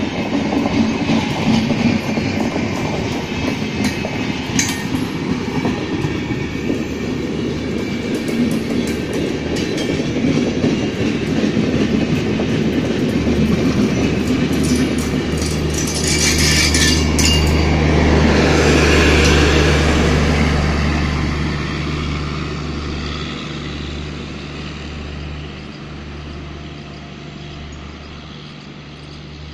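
Express train's passenger coaches rolling past close by, the wheels clattering over the rail joints. A brief high-pitched noise comes near the middle, and a low steady drone joins as the rear of the train goes by. Then the sound fades as the train moves away.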